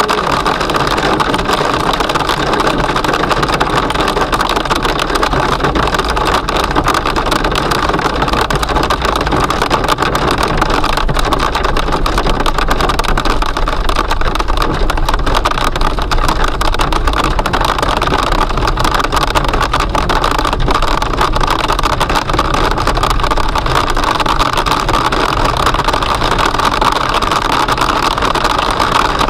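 Small, marble-sized hail and heavy rain pelting the car's roof and windscreen as a dense, steady patter of countless small hits, heard from inside the moving car over its road noise.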